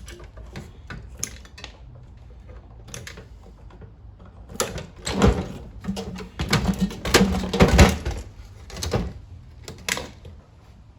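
Sheet-metal parts of an old microwave clattering, scraping and knocking as it is pulled apart by hand, with scattered light clicks at first and a louder run of metallic clatter and heavy knocks in the middle.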